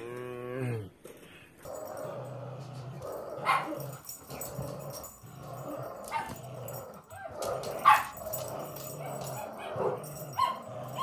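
Two dogs growl in play as they pull against each other on a rope toy, with a few sharp barks, the loudest about eight seconds in. A brief wavering call opens it.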